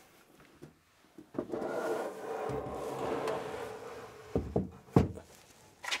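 A desktop computer tower sliding and scraping along a plywood shelf, starting about a second and a half in, then several sharp knocks as it is pushed into place.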